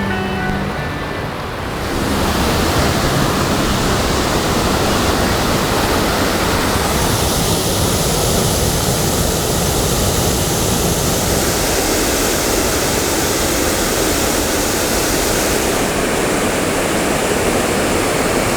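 Waterfall running high and pouring heavily, a loud steady rush of water.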